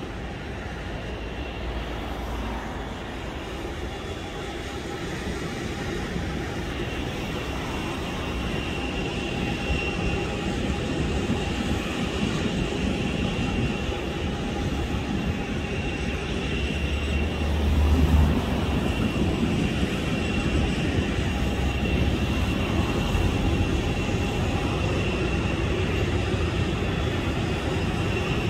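Airliner jet engines running at an airport apron: a steady rumble with a thin high whine held on one pitch, growing gradually louder.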